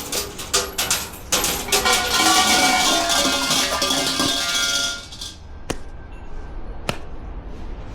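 A loud, dense metallic rattling and clattering with ringing tones, which fades out about five seconds in, followed by two single sharp clicks.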